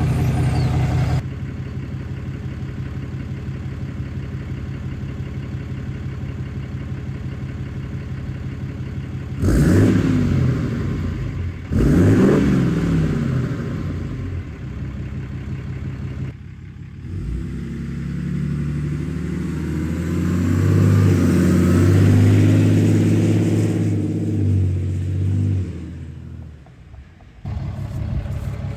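6.7 Cummins inline-six turbo-diesel breathing through a 5-inch exhaust with an Aero Turbine AT5050XL muffler: idling, revved briefly twice, then the truck drives past, its exhaust note swelling as it passes and fading away, before idling again near the end.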